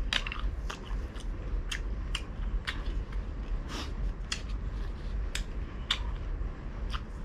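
Open-mouthed chewing of crispy deep-fried pork belly: irregular sharp crunching clicks, about two a second, over a low steady hum.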